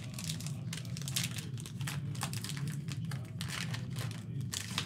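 Plastic wrapper of a basketball card fat pack crinkling as it is handled, in a quick irregular run of crackles, over a low steady hum.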